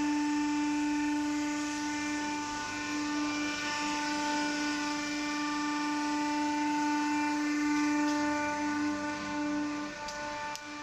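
Rubber strainer machine running: its electric motor and hydraulic unit give a steady hum with a whine of several pitches over it. The sound dips slightly near the end, with a couple of light clicks.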